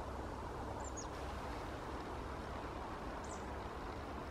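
Countryside ambience: a steady low rumble and hiss, with a small bird giving short, high, falling calls, once about a second in and again just past three seconds.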